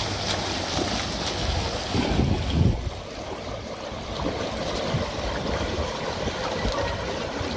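Swimmers splashing through the butterfly leg of a swimming race, a steady watery hiss with wind rumbling on the microphone underneath. The splash hiss thins out sharply about three seconds in.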